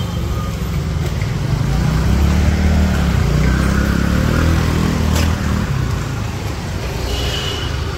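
Motor scooter engines running as they pass close by in street traffic, their engine note swelling to its loudest about halfway through and then dropping away. A short sharp click about five seconds in.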